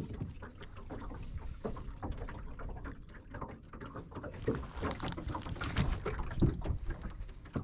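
Wind buffeting the microphone aboard a small aluminum fishing boat, with scattered small knocks and rustles from gear being handled in the boat.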